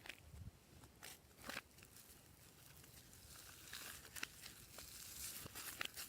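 Glossy slime being handled and mixed, giving faint sticky clicks and crackles: a few sharp clicks in the first second and a half, then denser crackling from about three seconds in.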